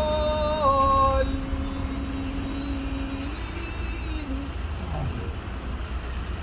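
A voice chanting a prayer holds a long note that steps down and breaks off about a second in, followed by a lower held note that ends about three seconds in. A steady low rumble of street traffic runs underneath.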